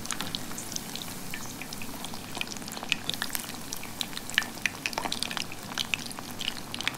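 Masala vadai deep-frying in hot groundnut oil: a steady sizzle with frequent crackles and pops.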